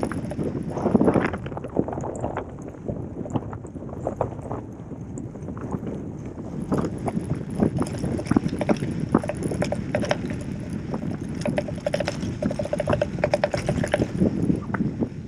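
Gravel bike rolling fast over a dirt road: tyres crunching on loose gravel and the bike rattling over bumps. Near the end comes a run of fast, even freehub ticking while coasting.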